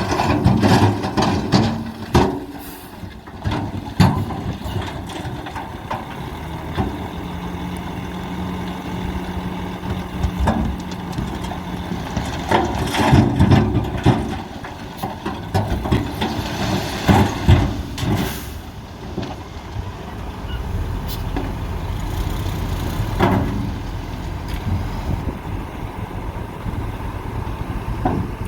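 Heavy road-construction machinery running: a steady engine drone broken by repeated sharp knocks and clanks, with a steady hum held for about five seconds a quarter of the way in.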